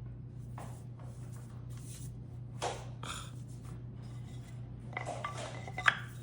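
Handling noises: a few short rubs and rustles and a light knock near the end, over a steady low hum.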